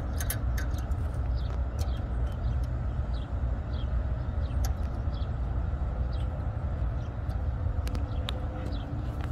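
Steady low rumble of road traffic, with faint scattered clicks of metal fittings being handled.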